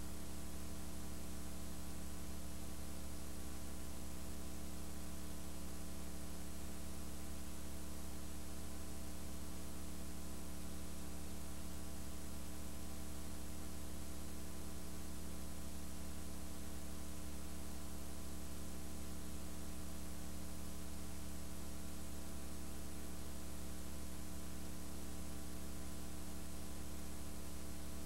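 Steady electrical mains hum with a buzzy edge and a layer of hiss, unchanging throughout, from the recording chain. No sound from the routine itself comes through.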